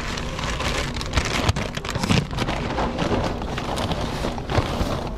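Brown paper takeout bag and its receipt crinkling and rustling close up as they are handled, a dense crackle with many small clicks.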